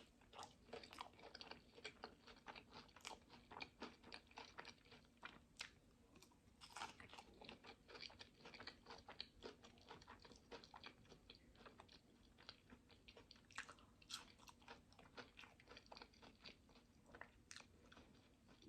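Faint close-miked chewing of a hot dog topped with chili and coleslaw: a steady run of small wet clicks and light crunches, several a second.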